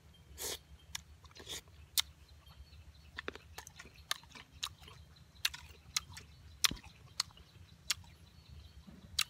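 A person chewing crisp food close to the microphone: sharp crunches come irregularly, a few a second.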